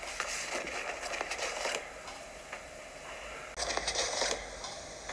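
Rustling and crackling in two bursts: a longer stretch with small clicks over the first couple of seconds, then a shorter, brighter burst a little past the middle.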